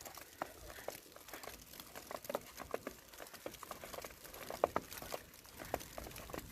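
Footsteps crunching in snow: a quick, irregular run of small crackles.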